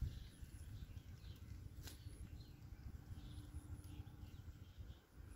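Faint outdoor ambience: a low rumble on the microphone, a single sharp click just before two seconds in, and faint short bird chirps.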